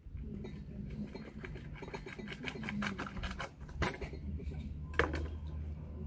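Knife prying and scraping at the hinge of a raw oyster shell: a run of small clicks and scrapes, then a sharp crack about five seconds in as the shell gives way and opens.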